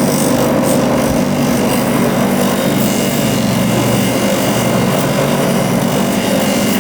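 An electric power tool running steadily, a constant motor hum under a continuous abrasive hiss.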